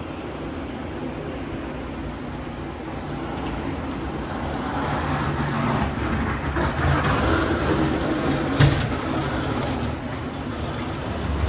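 Street traffic rumbling, swelling as a heavy vehicle passes, with one sharp clunk near the end.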